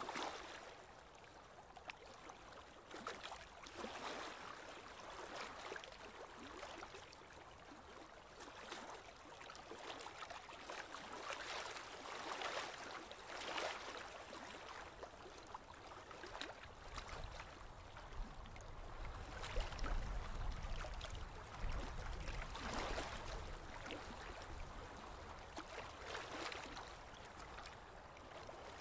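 Water sloshing and lapping against the hull of a moving small boat, swelling irregularly every second or two. A low rumble rises for several seconds past the middle.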